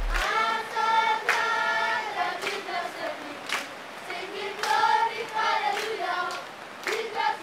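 A group of voices singing together, with hand claps roughly once a second.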